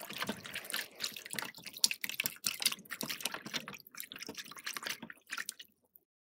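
Splashing, dripping water sound effect for a Hydro Pump water attack, a dense irregular spatter that cuts off shortly before the end.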